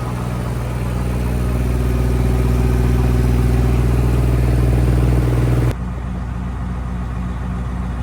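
Diesel engine of a 1999 Freightliner FLD 120 truck running at a steady pitch. It grows louder over the first few seconds, then drops off suddenly about six seconds in.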